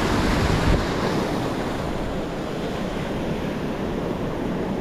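Small surf breaking and washing up the sand and over a low reef at the water's edge, with wind buffeting the microphone as a low rumble.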